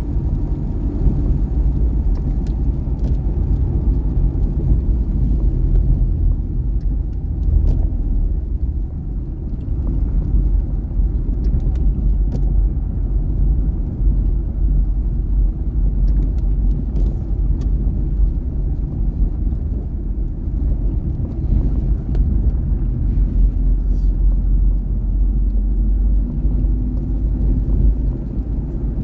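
Steady low rumble of a Wuling Confero's engine and tyres on a wet road, heard from inside the cabin.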